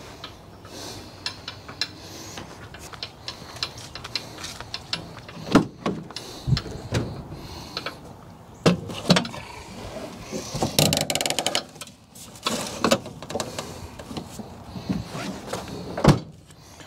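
A metal live trap being handled and loaded into a pickup truck bed: scattered knocks and clicks, a few louder clunks, and a quick run of rapid clicks about eleven seconds in as it is secured for the drive.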